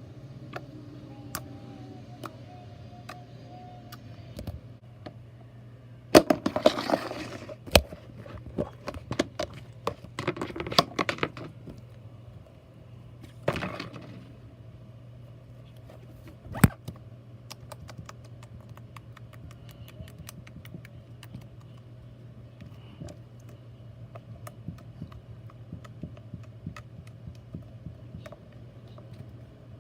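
Scattered clicks and handling noises, with three louder crackling, rustling stretches in the first half, over a steady low hum.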